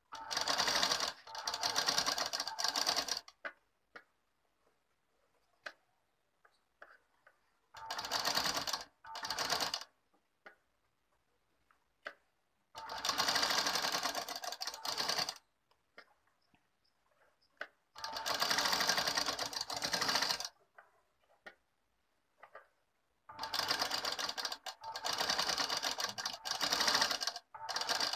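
Sewing machine stitching through thin fabric in five short runs of two to four seconds each, stopping between runs while the fabric is repositioned, with a few small clicks in the pauses. The stitching is the understitch (dab ki silai) holding the blouse lining.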